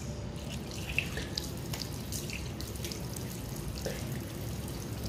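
Water running from a tap into a sink, with irregular splashes and drips as water is scooped up in the hands and splashed onto the face.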